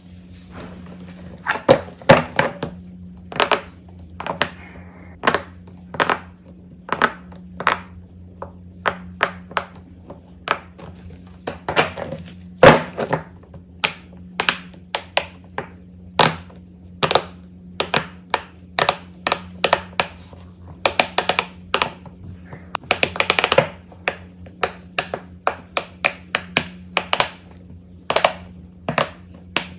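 Silicone pop-it fidget toy bubbles pressed by fingers one after another: a string of sharp pops at an uneven pace, with a quick run of them about three-quarters of the way through. A faint low hum runs underneath.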